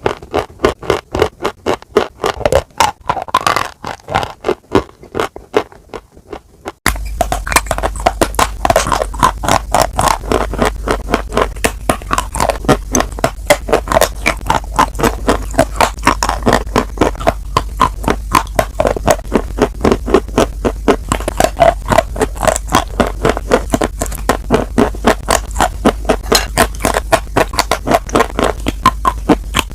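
Close-miked crunchy chewing: a rapid run of loud, sharp crunches, several a second. About seven seconds in, a steady low hum comes in beneath the crunching.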